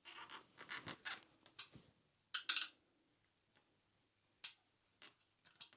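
Short scratching and clicking handling noises from work on an e-scooter's disc brake caliper, in several brief bursts. The loudest comes a little over two seconds in.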